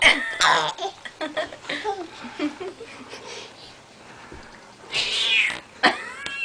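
Domestic cat meowing and yowling several times, loudest right at the start and again about five seconds in, each call falling in pitch.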